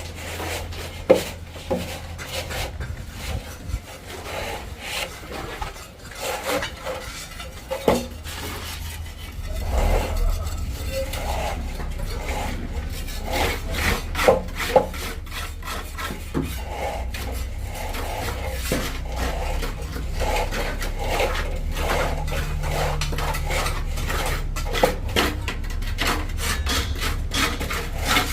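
Hand plastering: a trowel scraping and rubbing cement render across a wall in repeated rasping strokes, with occasional sharp knocks. A steady low rumble runs underneath and grows louder about ten seconds in.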